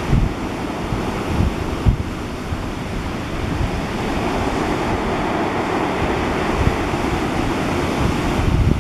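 Stormy sea: waves washing and breaking, with strong wind buffeting the microphone in uneven low gusts.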